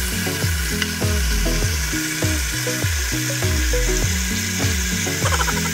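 Background music with a steady beat over a continuous sizzle of chicken frying in its own fat in a covered electric skillet.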